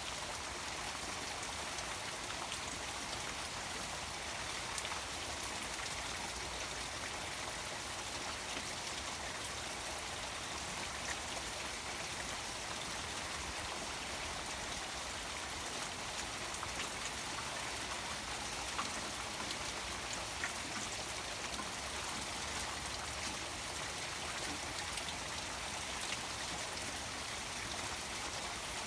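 Rain falling steadily on a garden pond, with scattered drops pattering and the pond's small waterfall running underneath.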